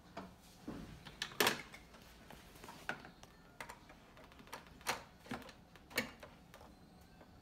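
Scattered clicks and knocks of hard plastic toys: a toy drill and toy car clacking against a plastic toy workbench as they are handled. The loudest knock comes about one and a half seconds in, with a few lighter clicks later on.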